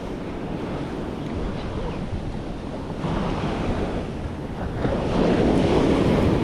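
Ocean surf breaking and washing up the beach, with wind buffeting the microphone. The wash swells louder about three seconds in and again, more strongly, near the end.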